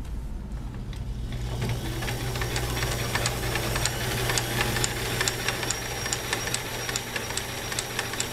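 Kenmore 158.141 zigzag sewing machine running under its electric motor, stitching a pattern that feeds forward and in reverse. A steady motor hum builds up in the first second or two, with a regular tick about twice a second from the mechanism.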